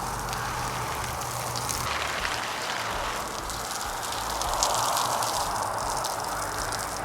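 Steady rush of running water, as a poultry water container or pond is filled.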